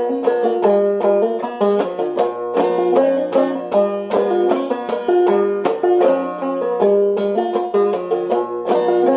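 Banjo played clawhammer style: a steady old-time rhythm of picked melody notes and brushed strums.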